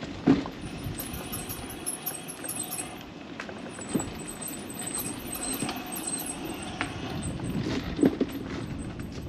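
Wheels rolling down a concrete path: a steady rumbling hiss broken by three sharp knocks about four seconds apart.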